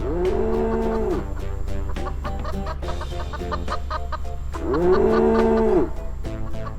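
Children's-song backing music with a steady beat, over which two long animal calls sound, each about a second long, rising and then falling in pitch, one at the start and one about four and a half seconds in.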